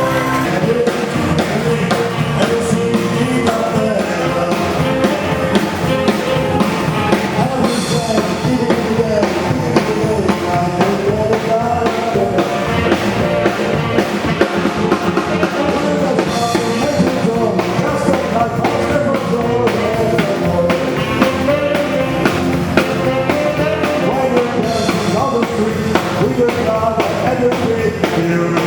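Pop-rock music with a drum kit and guitar keeping a steady beat under a melody.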